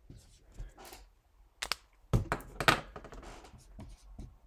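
Dry-erase marker writing on a whiteboard: a series of short scratchy strokes, the loudest about two seconds in.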